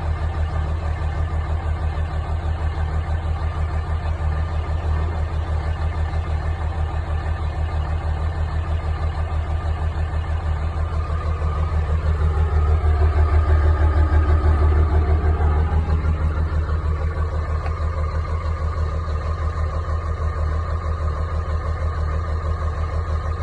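Dodge Ram's 5.9 Cummins common-rail inline-six turbo diesel idling steadily after a cold start, with a bad injector. About halfway through it revs up briefly and settles back to idle.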